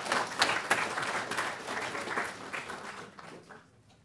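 Audience applauding, a dense patter of many hands clapping that thins out and fades away about three and a half seconds in.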